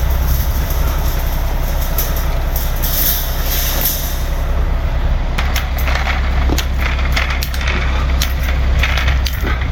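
Diesel engine of a concrete mixer truck running steadily with a deep drone, with scattered clicks and scrapes from about five seconds in.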